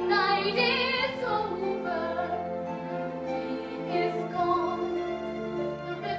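A woman singing solo in a musical-theatre ballad, holding wavering notes over a pit orchestra.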